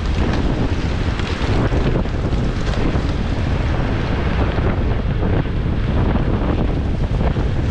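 Wind buffeting the microphone: a loud, steady rush with a fluttering low rumble.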